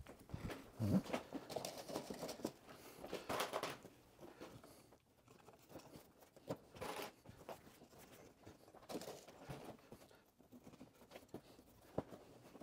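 Faint, irregular clicks and rustles of hands working copper stitch wires: twisting them through the drilled holes and scraping them against the edges of thin plywood kayak panels.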